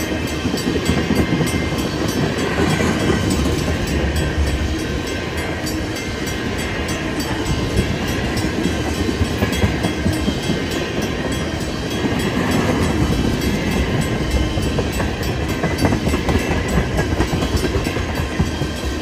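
Tank cars of a Canadian Pacific freight train rolling past. The steel wheels on the rails make a steady rumble with a rhythmic clatter over the rail joints.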